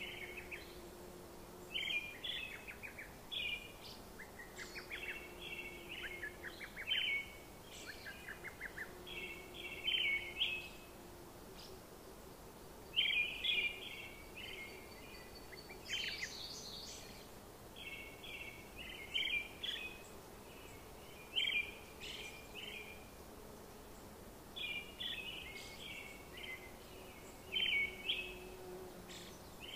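Birds chirping in short bursts of quick notes every two to three seconds over a steady background hiss, with a faint low hum that comes and goes.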